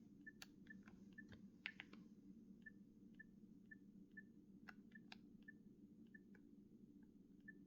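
Faint short beeps from a Nokia 6670 mobile phone's keypad, about two a second at one steady pitch, with soft clicks of its keys being pressed.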